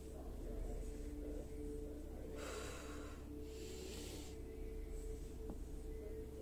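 A person breathing hard while deadlifting a barbell: two heavy breaths, one after the other, a little past the middle, over a faint steady hum.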